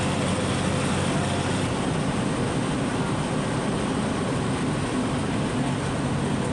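Bus engine and road noise heard from inside the cabin while driving: a steady low drone with a hiss of tyres and wind.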